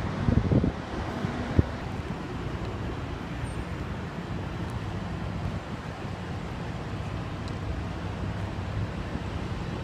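Steady low rumble of running vehicle engines, with wind noise on the microphone. A few sharp thumps come within the first two seconds.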